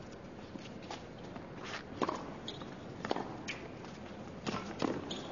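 Tennis rally on a hard court: sharp pops of racket strikes and ball bounces, roughly one every half second to a second, over a faint steady crowd hush.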